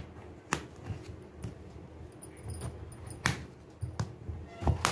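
Kitchen knife cutting through a peeled bottle gourd, knocking on the plate beneath as each cut goes through: three sharp clicks, about half a second in, a little past three seconds and at the very end, with softer knocks between.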